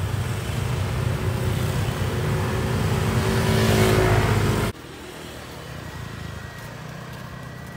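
Motor scooter engines running, growing louder with a rising pitch as one passes close about four seconds in. The sound cuts off abruptly just before five seconds, leaving a much quieter outdoor background.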